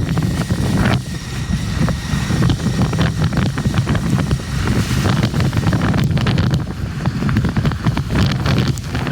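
Wind buffeting the microphone: a choppy low rumble throughout, with road traffic beneath it.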